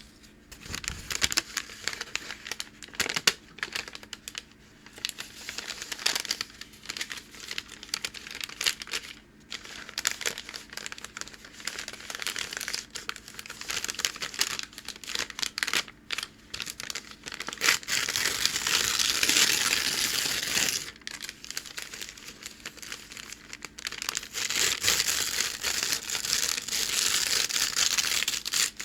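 Packing paper being crinkled and torn by hand: a continuous crackly rustling full of sharp little crackles, with two longer, denser scratchy stretches about two-thirds of the way through and near the end.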